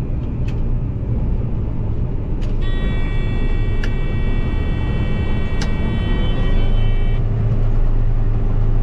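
Case IH combine running at a steady low rumble. Partway through, a steady high buzzing tone sounds for about four seconds, broken by two sharp clicks. Near the end the engine hum shifts and grows slightly louder.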